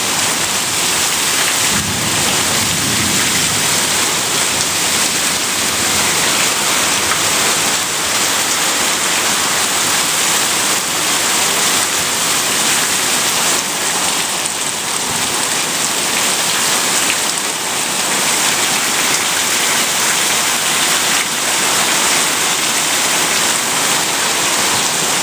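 Heavy downpour: a dense, steady hiss of rain pouring onto the yard, heard from under a covered patio, with water streaming off the roof edge.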